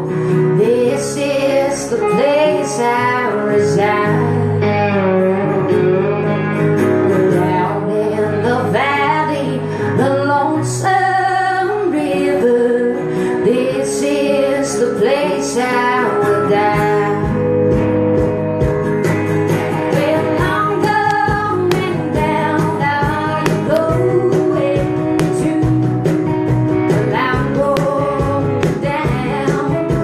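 Live acoustic song: a woman singing to a strummed acoustic guitar. About seventeen seconds in, hand strikes on a cajón join in as a steady beat.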